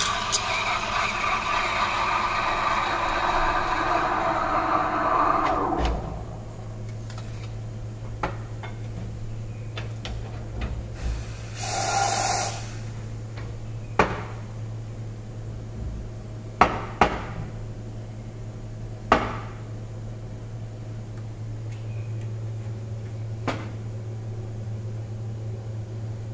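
Espresso machine steam wand hissing as it steams milk in a stainless pitcher, stopping about six seconds in. A second short burst of steam hiss comes about twelve seconds in. Several sharp knocks on the counter follow, over a steady low hum.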